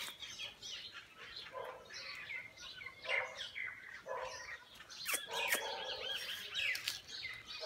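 Many small wild birds chirping and singing, quick high notes overlapping throughout, with a run of repeated looping notes in the second half. A few lower calls and two sharp clicks about five seconds in.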